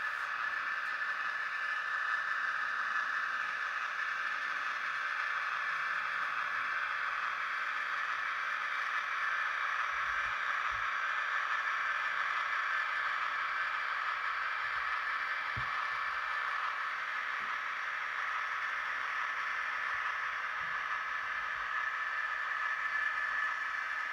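Sound decoder of an N gauge model of the Siemens ER20 Hercules diesel-electric locomotive playing a steady diesel running sound through the model's small speaker as it runs on the layout.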